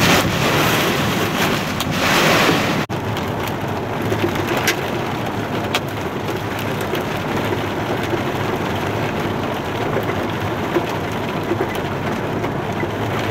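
Heavy rain drumming on a car's windshield and roof, with a few sharp knocks from chunks of hail. The sound drops out for an instant about three seconds in, then goes on as a steadier rain hiss.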